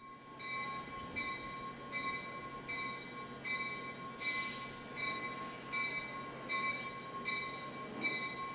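A train's bell ringing steadily, a little more than one strike a second, over the low rumble of the train pulling into the station.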